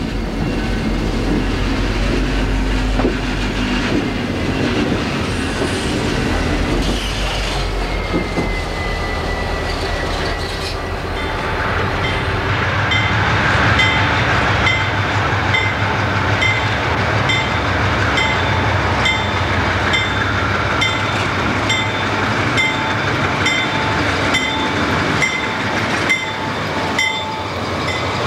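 Diesel freight locomotives approaching and passing close by, engines running, with a bell ringing in steady strokes about one and a half times a second from a little before halfway through. Before that, the rumble of a moving train with a drawn-out wheel squeal about a third of the way in.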